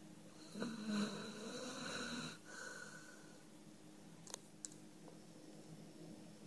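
A sleeping dog snores once: a rough, drawn-out breath of about two seconds, trailing off into a softer breath. Two faint clicks follow a little later.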